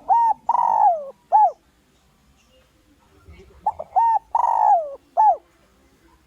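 Spotted dove cooing its song twice, about four seconds apart: each phrase is two short coos, a long drawn coo that falls in pitch, and a short final coo. It is the call used as a lure to draw rival males in.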